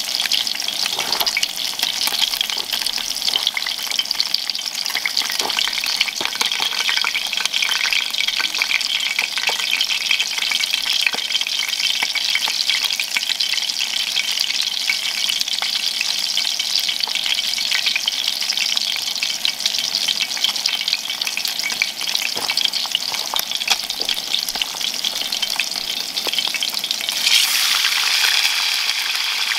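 Trout frying in oil in a cast-iron skillet: a steady crackling sizzle. Near the end the sizzle flares louder as another fish is laid into the hot pan.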